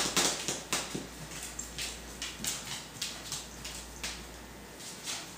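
Corgi puppies moving about and playing: a scatter of small irregular clicks and taps, busiest in the first second.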